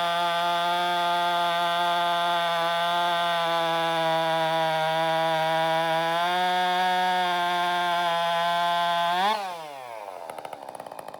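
Husqvarna 562 XP (Mark I) two-stroke chainsaw held at high revs, its pitch rising slightly about six seconds in. About nine seconds in the throttle is released and the revs drop quickly to a quiet idle.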